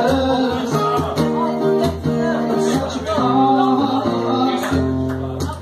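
Live acoustic guitar strummed in chords, with a man singing along into a microphone.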